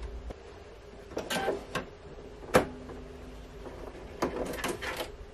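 Small clicks and handling noises as hands thread the upper thread and needle of a Brother Skitch embroidery machine, with one sharp click about two and a half seconds in.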